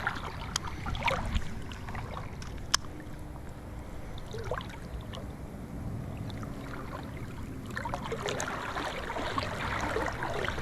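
Swollen river current rushing steadily, with water splashing at the start and again near the end, and a couple of sharp clicks.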